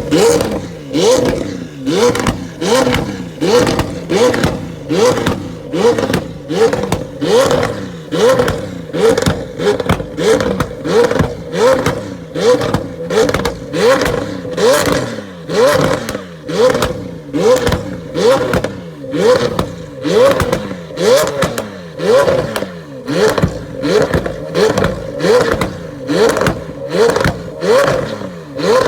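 Performance car engine revved in quick, even throttle blips, roughly every two-thirds of a second, each rev rising in pitch and then falling away. Sharp exhaust crackles and pops come as each rev drops.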